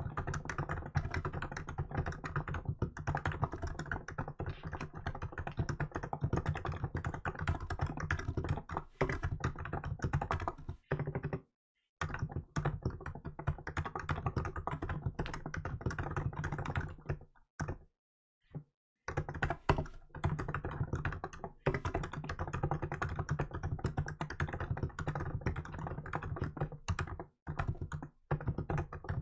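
Rapid, continuous typing on a Hansung GK868B electrostatic capacitive (non-contact) keyboard fitted with 'milk' keycaps, a dense run of keystrokes. It stops briefly a little before the middle, and again for under two seconds a bit past the middle.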